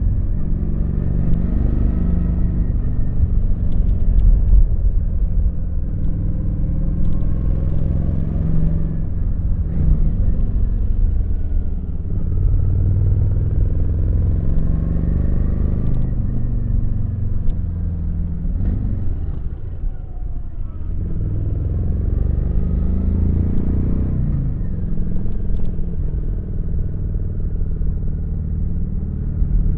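Kawasaki VN900's V-twin engine running on the move, its pitch rising and falling with throttle and gear changes. It drops low about two-thirds of the way through, then climbs again. Wind rumble on the microphone runs underneath.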